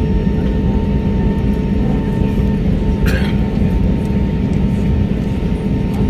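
Steady cabin noise inside an Airbus A320 taxiing after landing: a low rumble from the idling jet engines and cabin air with a constant hum. A short higher-pitched sound is heard about three seconds in.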